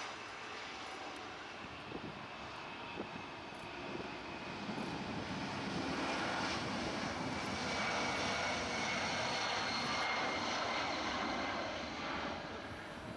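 Jet airliner passing, its engine noise swelling to a peak about halfway through and then easing, with a high turbine whine over the rush.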